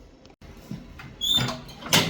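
Snowblower control cable and linkage being worked by hand, giving short high-pitched squeaks in the second half after some quieter handling noise.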